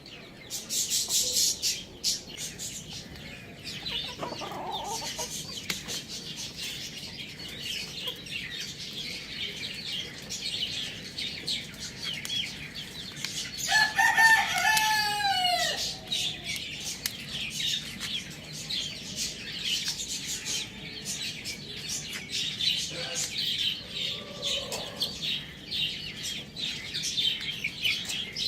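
Budgies chattering and chirping continuously. About halfway through a rooster crows once, a loud call of about two seconds falling in pitch. Hens cluck briefly twice.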